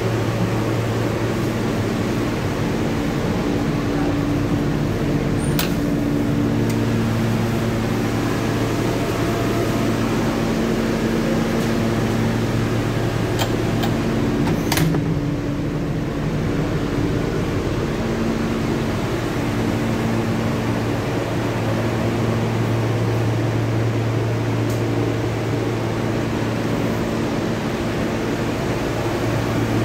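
Steady hum of an R160B subway car's air conditioning and on-board equipment, several low tones fading in and out, with a few faint clicks about five seconds in and again around the middle.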